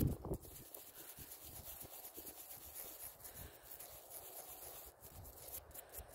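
Toothbrush bristles scrubbing caked soil off a small dug-up weight: a faint, steady scratchy rubbing, with a brief louder handling noise right at the start.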